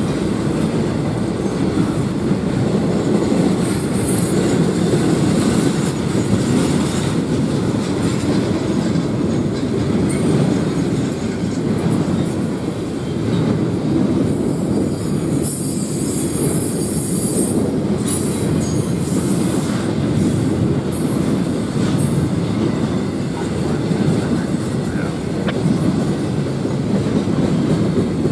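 Cars of an intermodal freight train rolling steadily past: a continuous rumble of steel wheels on rail, with high-pitched wheel noise coming and going.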